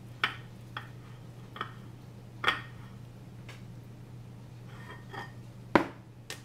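Scattered light knocks and clinks of a glass bowl of dough and a flour tin being handled on a marble pastry board, one sharper knock just before the end. A steady low hum runs underneath.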